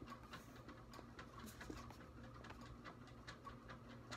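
Faint, irregular light clicks and ticks of a tarot deck being handled on a wooden tabletop as cards are shuffled and one is drawn.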